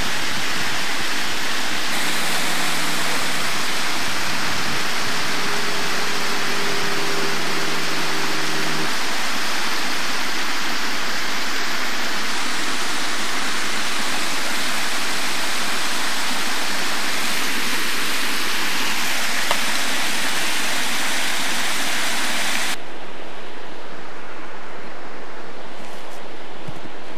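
Loud, steady rushing noise with no distinct events, with faint low hums in the first several seconds; it drops in level and loses its top abruptly near the end.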